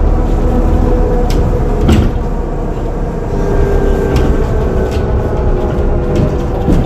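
Ikarus 412GT trolleybus standing, its equipment running with a steady hum, and a higher whine that joins about halfway through. Several sharp clicks and knocks come over it, the loudest about two seconds in.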